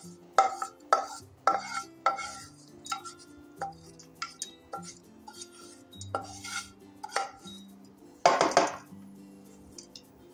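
Wooden spatula scraping roasted pumpkin and melon seeds out of a nonstick frying pan into a stainless steel bowl, with a string of sharp metallic clinks as the pan knocks on the bowl's rim. A longer, louder scrape comes a little after eight seconds.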